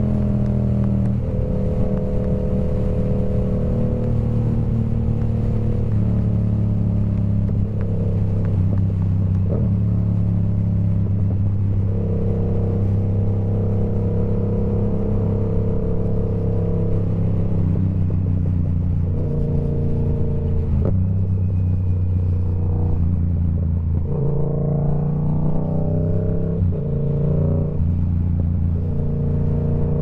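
Yamaha R7 motorcycle with a TOCE full-system exhaust running loudly. Its exhaust note holds steady for a few seconds at a time, then steps up or down to a new pitch as the revs change.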